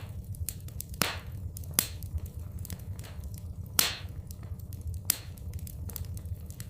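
Wood fire in a fireplace crackling, with irregular sharp pops and snaps, several of them loud, over a low steady rumble.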